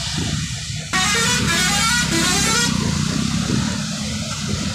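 Traffic passing on a rain-wet highway, tyres hissing on the wet road over a low engine rumble. About a second in, a vehicle horn sounds for nearly two seconds.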